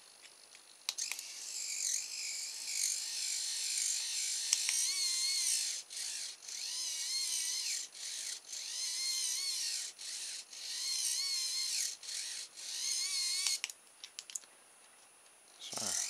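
Small hobby servo, converted for continuous rotation, whirring as its little motor and gearbox turn the output horn, driven from a servo tester. It runs in stretches of a second or two with short stops and a wavering pitch, then stops about two seconds before the end.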